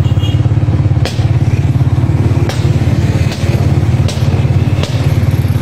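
Motorcycle engine running close to a phone microphone: a steady low, rapidly pulsing rumble. Four sharp knocks cut through it at uneven intervals.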